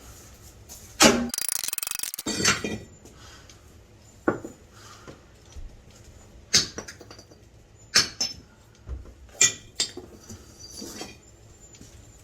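Irregular sharp metallic clanks and knocks, about half a dozen, from cast-iron boiler sections being struck and moved about. The loudest knock is about a second in, followed at once by a short harsh rasp.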